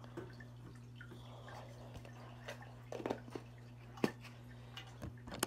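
Fish tank with its filter running: a steady low hum, with water dripping and a few light clicks and taps scattered through it.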